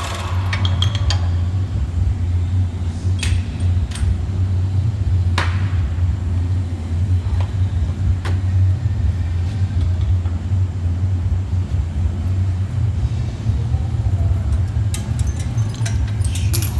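A steady low mechanical hum, with scattered sharp metallic clinks and knocks from tools and parts being handled, a few of them close together near the start.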